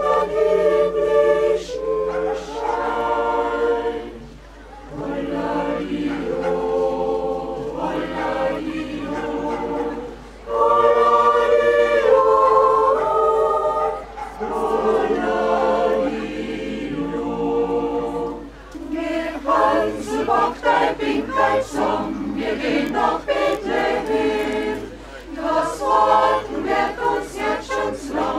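Mixed choir singing a cappella, a song sung phrase by phrase in long held chords with short breaths between. About two-thirds of the way through, the notes turn shorter and quicker.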